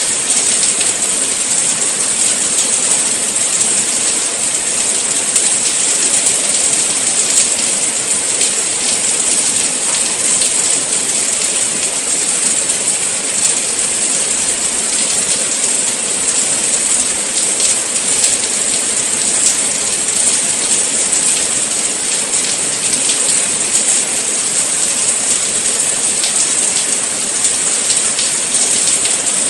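Steady rain falling: a dense, even hiss with many small drop ticks pattering through it.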